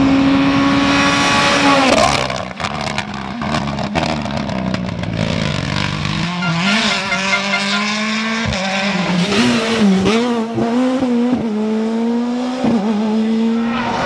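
Mini John Cooper Works WRC rally cars at racing speed, their turbocharged four-cylinder engines held high. About two seconds in the engine note drops off and a run of sharp pops and crackles follows. Later the engine note climbs and falls back several times as the driver shifts and lifts.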